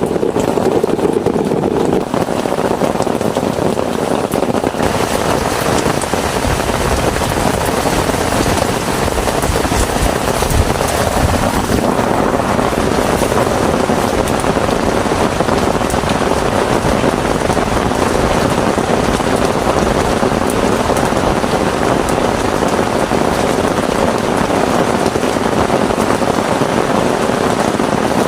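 Heavy rain falling steadily, a dense, even hiss. A low steady hum underneath stops about two seconds in.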